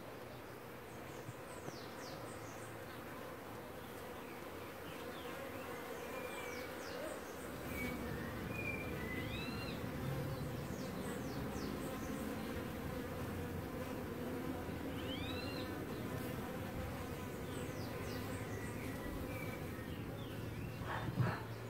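A swarm of bees buzzing steadily around a hive in a fallen tree, the buzz growing louder about a third of the way in. Birds chirp on and off, and there is a brief knock near the end.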